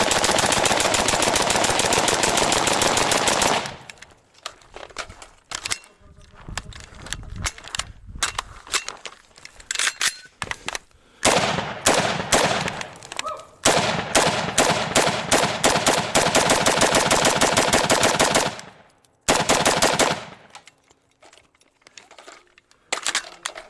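Rapid strings of gunfire, shots packed so close they run together for several seconds at a time, three long strings in all, with scattered single shots and clicks between them.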